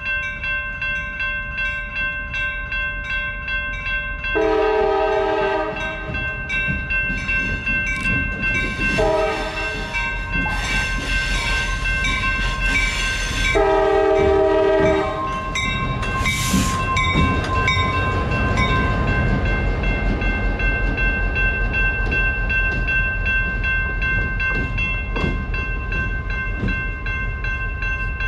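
EMD GP38-2 diesel-electric locomotive with its 16-cylinder EMD 645 engine running as it approaches, sounding its horn in long blasts in the first half. A grade-crossing bell rings steadily throughout.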